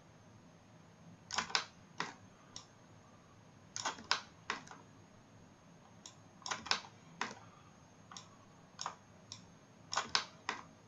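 Computer mouse clicking irregularly, often in quick pairs, as points of a line are placed one after another while tracing a shape in modelling software.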